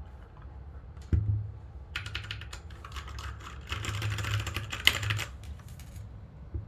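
Typing on a Royal Kludge backlit mechanical keyboard: a single thump about a second in, then a fast run of key clicks lasting about four seconds.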